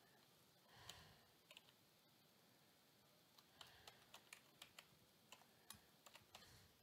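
Faint computer keyboard typing as a password is entered: a run of separate keystroke clicks, mostly in the second half.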